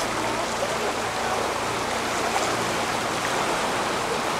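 Flood-swollen Rába river rushing and churning under a bridge, a steady, even rush of water.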